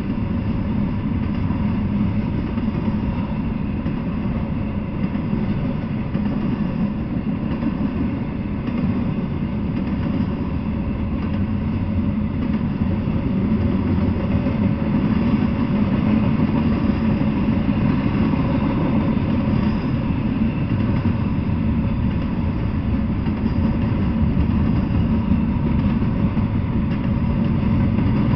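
Double-stack intermodal freight train rolling past: a steady, low noise of steel wheels on rail with faint steady tones over it, getting a little louder about halfway through.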